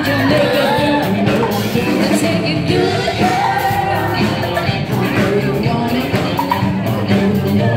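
Loud dance music with a singing voice over a steady beat.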